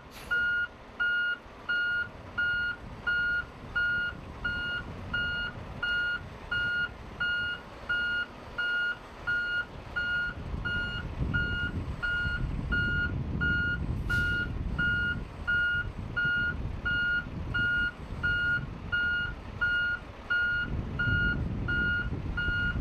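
Heavy truck's backup alarm beeping at an even pace throughout, over a diesel engine running underneath that swells louder around the middle and again near the end.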